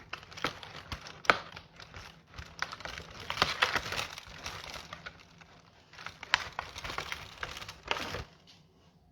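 Crinkling and crackling of an advent calendar's packaging being handled and opened, with several sharp clicks and taps mixed in; it stops about eight seconds in.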